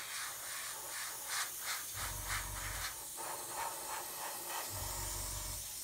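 Airbrush spraying heavily thinned paint with compressed air, a steady hiss.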